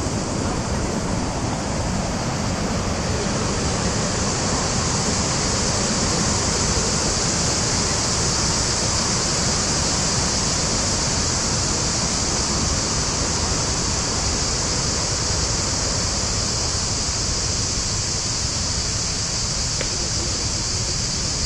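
Steady rushing roar of a waterfall, even and unbroken.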